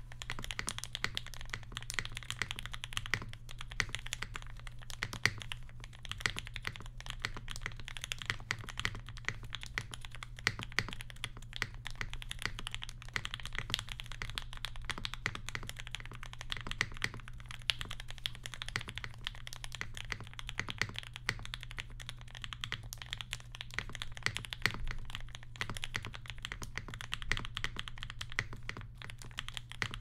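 Continuous fast typing on a Mode 80 mechanical keyboard with an FR4 plate, bottom foam only, lubed Mauve switches with TX films and GMK Olive keycaps: a steady, dense stream of key clicks.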